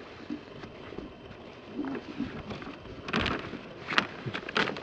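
Plastic bag rustling and crinkling as it is handled, with sharp crackles starting about three seconds in.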